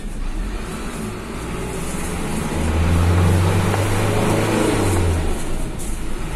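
Engine of a medium-sized bus pulling away. Its drone swells and rises in pitch from about two and a half seconds in, then drops away about five seconds in.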